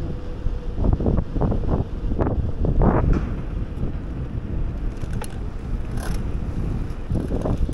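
Wind buffeting an action camera's microphone on a moving bicycle, in uneven gusts over a low, steady rumble from the bike rolling on the road.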